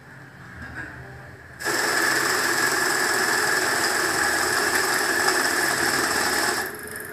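Electronic banknote counting machine running through a stack of notes: quiet handling as the bundle is loaded, then a steady fast whirring of the notes being fed and counted that starts about a second and a half in and stops abruptly near the end.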